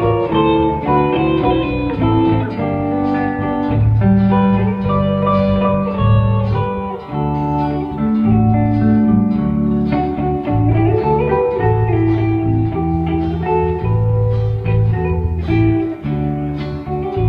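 Instrumental break of a blues-tinged country song: a guitar plays a melodic lead over bass and rhythm accompaniment, with some sliding notes.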